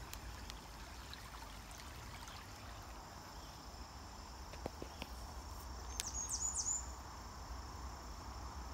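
Insects trilling steadily at a high pitch, with a brief run of quick, falling high chirps about six seconds in.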